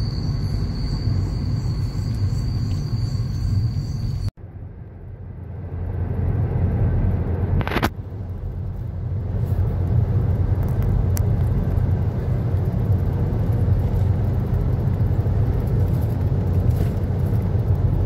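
Steady low road and engine rumble heard from inside a moving car. A thin, steady high-pitched whine sits over it for the first four seconds. After a brief dropout the rumble builds over several seconds, then holds steady.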